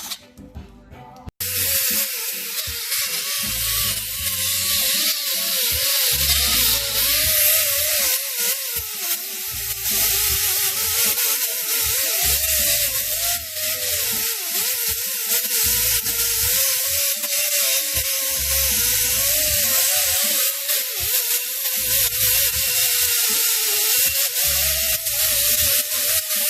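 Background music starts abruptly about a second and a half in and plays on. It has a bright, hissy texture and a pulsing low beat.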